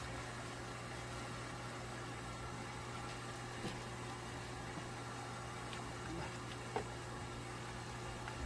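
A steady low mechanical hum under a constant hiss, with a few faint, brief clicks.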